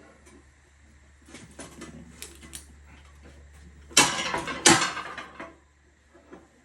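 Tire-changing tools working on a tractor tire and rim: a few light clicks and scrapes, then two loud knocks less than a second apart, each ringing briefly.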